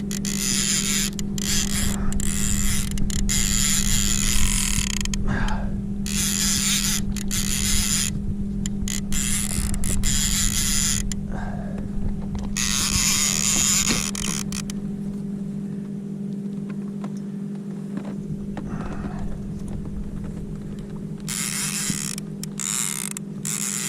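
Fishing reel being cranked in spurts against a hooked fish: a rasping mechanical whir that starts and stops, pausing for several seconds past the middle, over a steady low hum.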